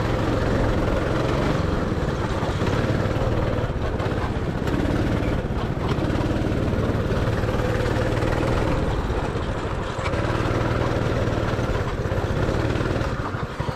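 Go-kart's small petrol engine running steadily under throttle as the kart drives round the track. Near the end the engine drops off and slows, and its separate firing pulses can be heard.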